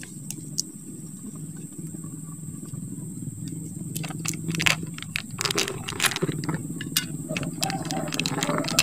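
Plastic wrap on a sealed boba drink cup crinkling and crackling in the hand as it is worked open, with sharp clicks that come more often in the second half. Under it runs a steady low rumble.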